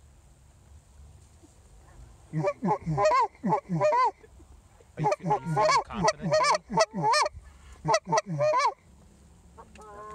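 Goose calls blown in quick runs of Canada goose honks and clucks, loud and close, calling to an incoming flock of Canada geese. The first run starts about two seconds in, a longer one follows after a short break, and another begins at the very end.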